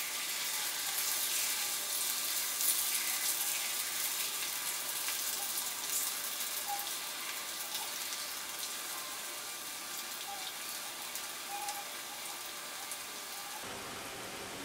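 Batter-coated strips of raw jackfruit deep-frying in hot oil, a steady sizzle with small crackles and pops. It is louder in the first few seconds and eases off slowly.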